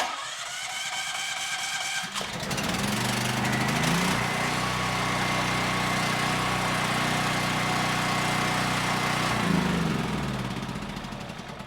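Generac GP9200E portable generator's electric starter cranking for about two seconds on jump-starter power, then the engine catches and runs up to speed. It runs steadily, and near the end it is switched off and winds down.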